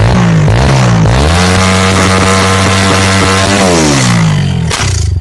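Motorcycle engine revving hard: the pitch wavers, rises about a second in and holds high for over two seconds, then falls back and cuts out near the end.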